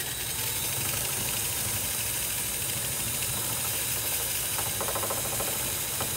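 DeWalt cordless drill running steadily, spinning a potato on its bit while a hand peeler scrapes the skin off, with a steady hiss. A brief burst of rapid ticking comes near the end.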